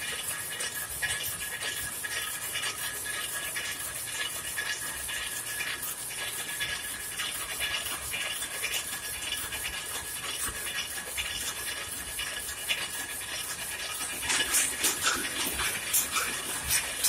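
Rapier loom running, a fast, steady mechanical clatter of rapid clicks. About three-quarters of the way in, the clatter grows louder and more uneven.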